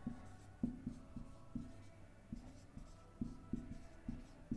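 Dry-erase marker writing on a whiteboard: about a dozen short, faint strokes and taps as letters are written.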